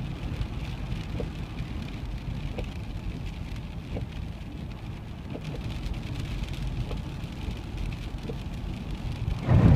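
Car driving on a rain-soaked road, heard from inside the cabin: steady low road rumble and wet tyre hiss, with a faint tick about every second and a half. A loud, low thump comes near the end.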